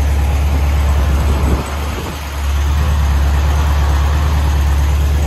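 Air-cooled 1600cc VW Beetle flat-four engine running at idle just after starting, turning its newly installed cooling fan. The sound steadies again after a brief dip about two seconds in.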